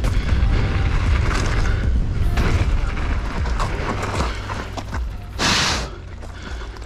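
Wind buffeting the helmet-mounted camera's microphone as a loud low rumble, with tyre and gravel noise as the mountain bike rolls off the track into the gravel finish area and slows. The rumble eases near the end, and a brief loud hiss comes about five and a half seconds in as the bike comes to a stop.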